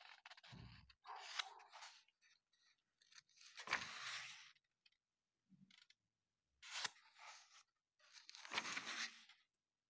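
Paper pages of a paperback manga volume being turned and smoothed down by hand: a series of about five short, soft paper rustles, with a low thump about half a second in.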